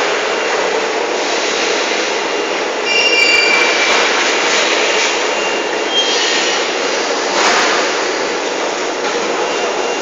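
Factory machinery of a solar water heater conveyor line running with a steady, noisy hiss and hum. Brief high squeals come about three seconds in.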